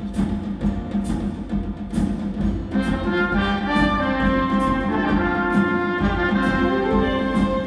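Live instrumental ensemble of brass, strings and timpani playing, with recurring drum strikes and sustained chords swelling in about three seconds in.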